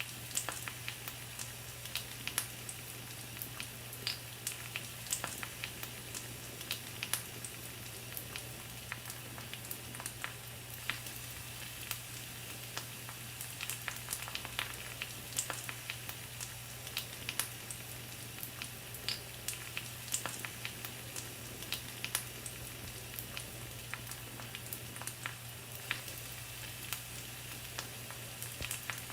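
Pork sizzling on a grill over a wood fire: a steady hiss broken by frequent, irregular sharp pops and crackles.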